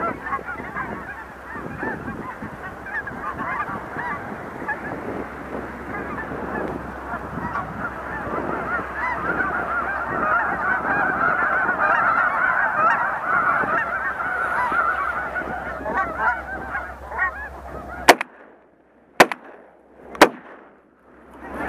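A large flock of snow geese calling, a dense chorus of honking that builds to its loudest about halfway through as the geese come in to land on the water. Near the end the calling cuts off and three loud, sharp bangs follow about a second apart: shotgun shots.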